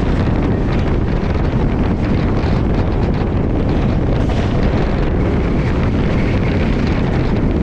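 Wind rushing on the microphone over the steady running noise of the moving Shatabdi Express train.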